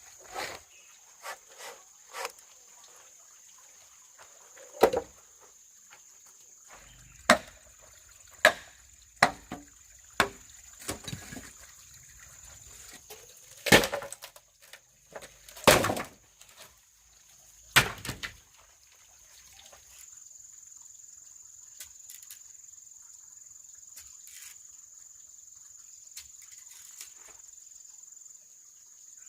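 Irregular sharp knocks, about a dozen spread over the first eighteen seconds, then stopping, over a steady high insect drone.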